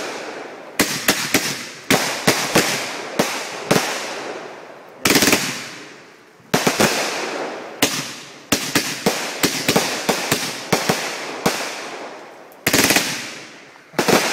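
Phantom Fireworks "God of Fire" aerial cake firing shot after shot: sharp reports in quick clusters, each followed by crackling that trails off. The next volley comes every second or two.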